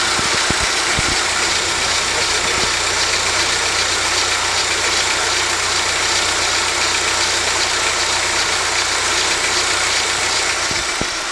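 Chevrolet Celta 1.0 engine idling with a steady high hiss, a little 'chiadinho', from the accessory belt area. The cause of the noise has not yet been traced.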